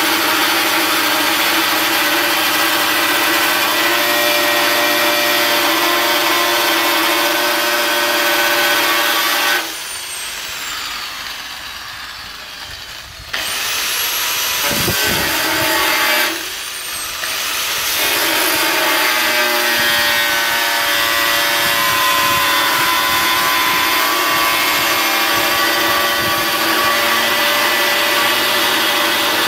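Handheld angle grinder with a cutting disc cutting through a sheet-metal panel, a steady loud whine and grinding. About ten seconds in, the motor is released and its whine falls as it winds down, then it starts again. Around sixteen seconds it briefly drops again before going back to cutting.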